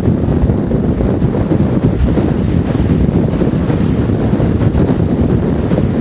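Blizzard-strength wind buffeting the microphone in a loud, steady low rumble, over rough surf breaking on a rocky shore.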